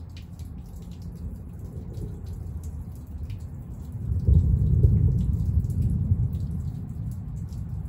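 Thunder rumbling low, swelling about four seconds in and dying away over the next few seconds, with scattered raindrops dripping and ticking throughout.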